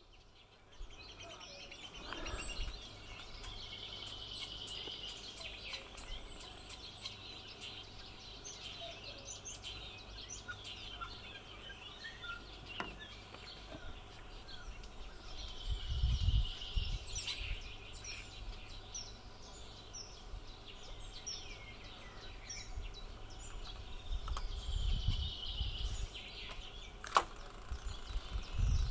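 Small birds chirping and trilling in the background, thicker in a few stretches, with low rumbles now and then and one sharp click near the end.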